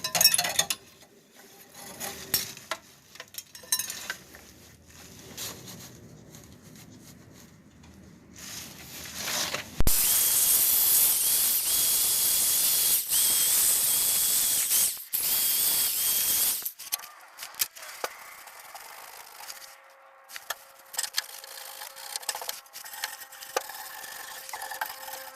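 Hand tools clicking and scraping on a rear brake line fitting. About ten seconds in, a loud, steady hiss starts abruptly and lasts about six seconds, then the tool clicks go on more quietly.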